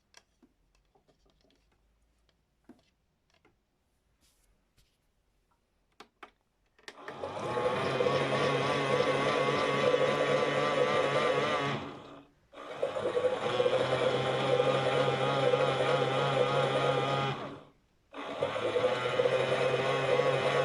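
Toy washing machine's small battery motor turning the drum through its wash program. After a few faint clicks it starts about seven seconds in and runs in spells of about five seconds with a wavering whine, cutting out briefly twice and starting again.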